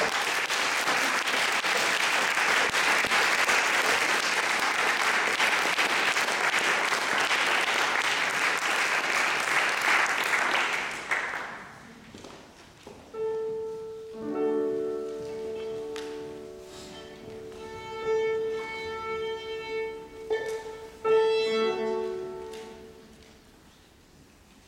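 Audience applauding steadily, dying away about eleven seconds in. Then a violin sounds long sustained bowed notes with a piano, in short phrases with gaps between them, fading to quiet near the end.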